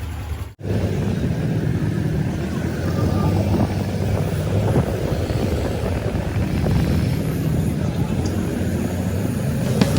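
A vehicle's engine and road noise running steadily during a drive, heard from on board, broken by a brief dropout about half a second in.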